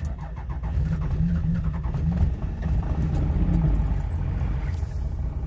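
1996 Cummins 12-valve inline-six diesel catching on a below-freezing cold start, block heater plugged in overnight. It fires right away and holds a steady fast idle with a low rumble, heard from inside the cab.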